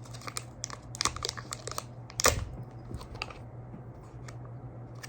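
Hands peeling and tearing packaging off a vape cartridge box: a scatter of crinkles and small clicks, with one louder crackle a little over two seconds in.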